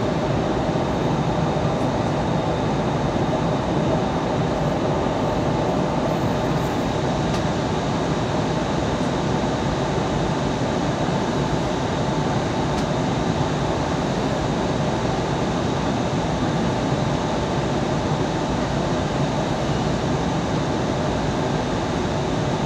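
Steady cabin noise inside an Airbus A320 airliner in flight: an even rush of engine and airflow noise at a constant level, with a faint steady high tone.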